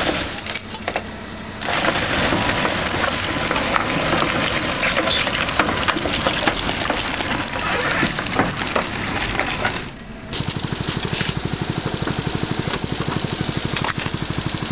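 Dense crunching and scraping noise with scattered clicks, typical of metal and glass being worked on a wrecked car. It breaks off about two-thirds of the way in. A small engine then runs with a rapid, even chugging, as from the power pack that drives hydraulic rescue tools.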